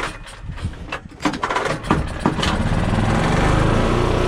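A small pull-start gasoline engine being cranked: a couple of sharp, sputtering pulls, then about two seconds in it catches and runs steadily with the choke off. The engine has been hard to keep running, which the owner puts down to a carburetor not fully cleaned in the ultrasonic cleaner.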